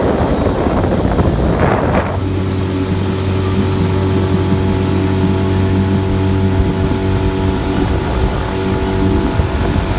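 Motorboat engine running at a steady speed, with a louder rush of noise, such as water or wind, during the first two seconds.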